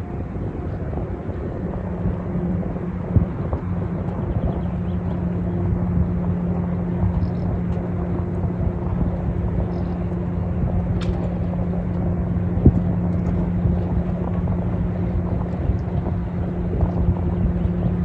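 Low, steady drone of a large cruise ship's engines and machinery carrying across the water as it passes, with a constant hum.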